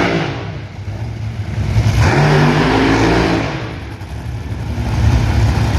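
Drag racing engine running loudly, its pitch rising and falling as it revs.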